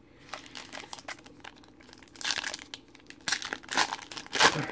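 Foil wrapper of a trading card pack crinkling and being torn open in irregular bursts that grow louder toward the end.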